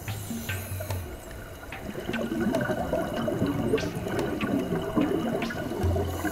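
Underwater sound of scuba divers' exhaled air bubbling up from their regulators: a steady gurgling rush with scattered sharp clicks.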